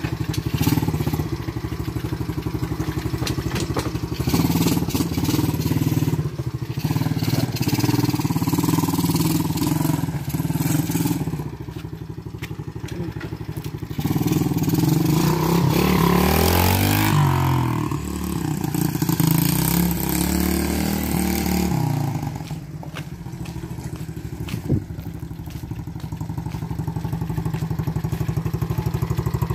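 Small ATV engine running, its pitch sweeping up and then back down about halfway through as it revs or moves past.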